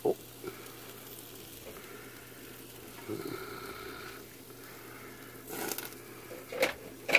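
Barbecue-sauced meat sizzling over open flame on a grill grate, with a few sharp pops near the end.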